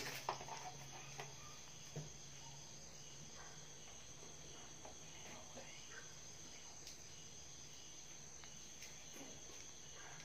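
Faint steady high-pitched tone over quiet room hiss, with a few soft clicks in the first two seconds as a small plastic bottle is handled.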